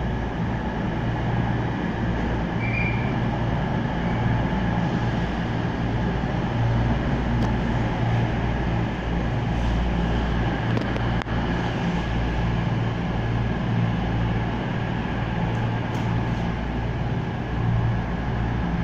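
Diesel train engines running at a station with a steady low drone.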